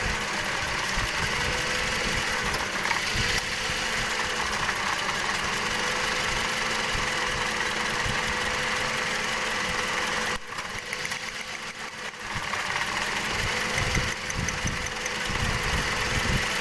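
Engine idling unevenly, with irregular low thumps from a misfire. It gets quieter about two-thirds of the way through, then comes back up.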